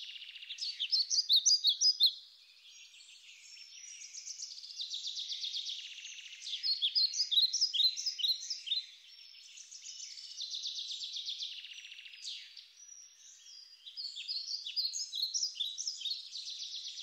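Birdsong: rapid trills alternating with clusters of short, sharp falling chirps, phrase after phrase, with no low background sound beneath it.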